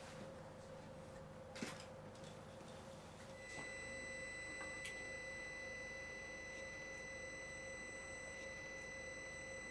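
Terrestrial 3D laser scanner (Riegl) running: a faint steady high whine of several pure tones sets in about three and a half seconds in and holds, over a low steady hum. A single click comes about a second and a half in.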